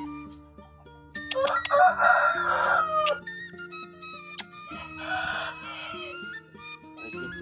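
A rooster crowing twice, each crow about one and a half seconds long, over background music of sustained low notes.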